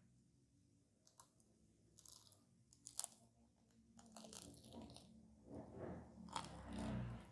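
Close-up crunchy bites and chewing of a crisp fried fast-food pie crust. There is a sharp crunch about three seconds in, and the chewing grows busier toward the end.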